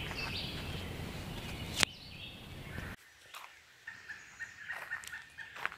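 Faint bird calls outdoors: a series of short, repeated notes in the second half, after a stretch of steady outdoor hiss with a single click.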